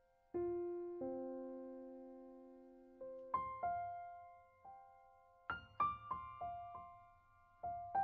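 Slow, gentle background piano music: single notes and small chords struck and left to ring out, coming a little more often after about five seconds.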